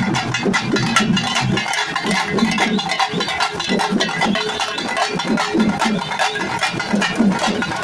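Pamba folk drums beaten with sticks in a fast, dense rhythm of loud strokes.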